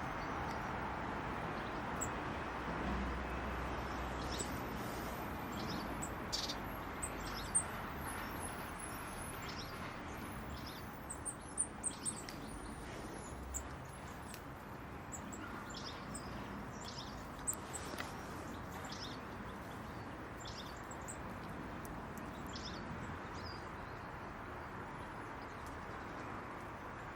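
Small birds chirping: short, high chirps and calls scattered throughout, over a steady outdoor background noise. A few sharper, louder ticks come around the middle.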